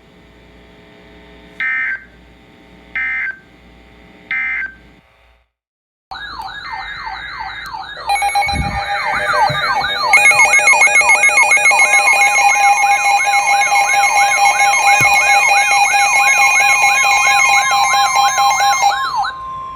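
Emergency Alert System broadcast audio: three short data bursts, about a second and a half apart, end the previous warning. After a brief silence a loud yelping siren tone starts, sweeping up and down about three times a second, and a couple of seconds later a steady attention tone and further siren layers join in, all cutting off near the end.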